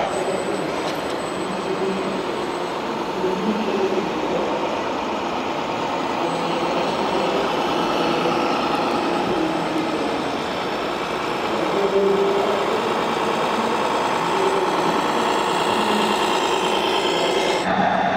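Radio-controlled scale model trucks and construction machines working, with steady truck-like engine sound and a dense mechanical running noise.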